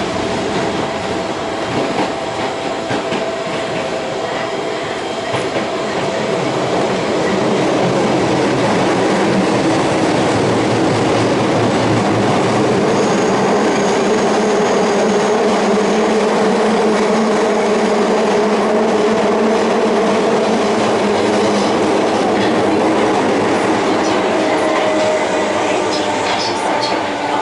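Interior running sound of an Osaka Metro 22 series subway car with Hitachi GTO-thyristor inverter drive: steady wheel-on-rail rumble and hiss with several steady tones from the drive, some slowly shifting in pitch.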